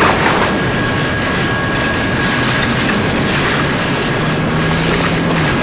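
Double-stack container well cars of a freight train rolling past close by: a loud, steady rush of steel wheels on rail, with a thin high tone held throughout.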